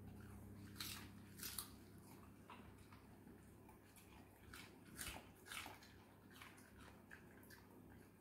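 A cavoodle chewing raw chopped cabbage: faint, irregular crisp crunches over a low steady hum.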